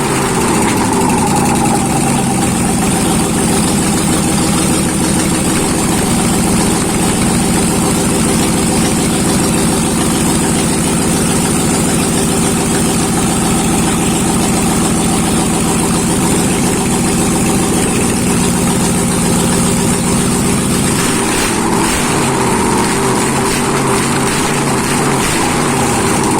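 ZMZ-511 V8 truck engine, just rebuilt, running steadily after a major overhaul; its note changes about twenty seconds in.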